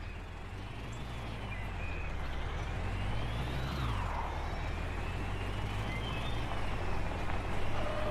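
Cartoon truck engine sound effect: a heavy engine running and revving. Its whine rises in pitch, then drops sharply about four seconds in, like a gear change, and climbs again.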